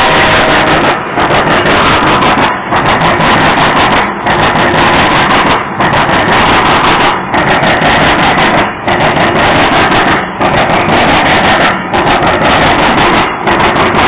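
Covered hopper cars of a CSX grain train rolling past close by: loud, steady wheel-and-rail rumble and clatter that dips briefly about every one and a half seconds as car after car goes by.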